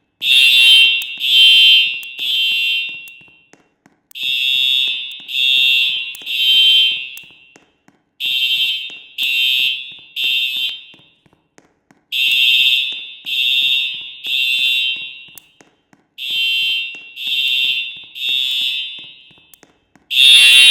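Building fire alarm sounding a high-pitched evacuation tone in the temporal-three pattern: three beeps, a pause, then three again, repeating about every four seconds. This is the evacuation signal that sounds between the voice announcements.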